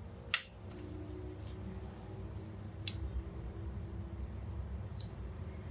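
A measuring spoon lightly clicking and clinking against a spice container while paprika is scooped out, three short clicks spread over a few seconds above a faint low hum.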